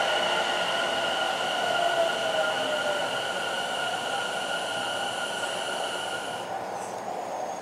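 Tobu 50070 series electric train standing at the platform, its equipment giving a steady high electrical whine over a hiss. The whine stops about six and a half seconds in.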